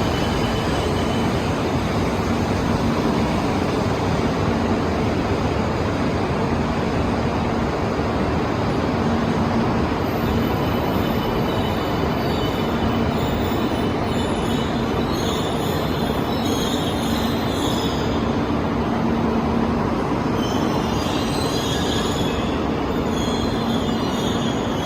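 E2-series Shinkansen running at speed, heard from inside the car's deck: a steady rumble of wheels and track with a low hum. Faint high-pitched squeals come and go in the second half.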